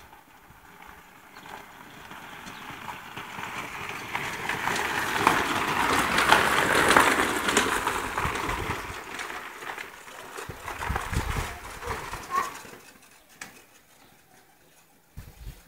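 Gravel crunching under the tyres of a 750 W electric children's ATV as it drives up, passes close and draws away. The noise swells to its loudest about seven seconds in and fades out by about thirteen seconds.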